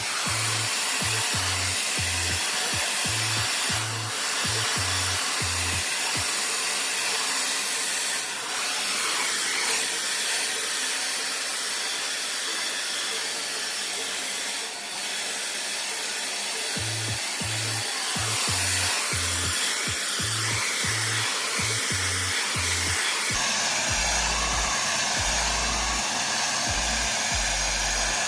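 Handheld hair dryer switched on and blowing steadily, its sound shifting about three-quarters of the way through; background music with a steady beat plays underneath.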